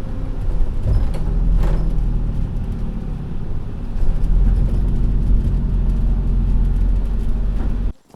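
A vehicle engine running with a steady low rumble, cutting off abruptly near the end.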